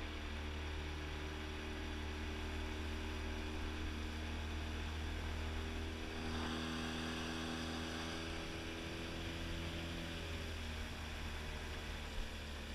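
Small boat's outboard motor running steadily at cruising speed, a low hum with a pitched drone above it. A rushing hiss from the hull grows louder about six seconds in, and the engine note shifts slightly about ten seconds in.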